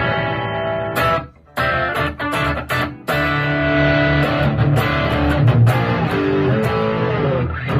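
Electric guitar played through a small 8 W pedal-style mini amplifier. It starts with a chord, breaks off briefly about a second in, plays a run of short choppy chords, then holds longer ringing chords from about three seconds on.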